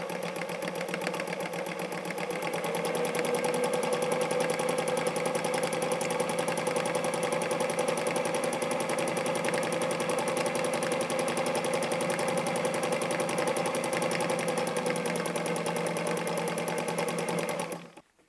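Vintage domestic sewing machine stitching continuously through a layered quilt patch. It runs faster and louder from about two seconds in, keeps an even rapid stitch rhythm, and stops near the end.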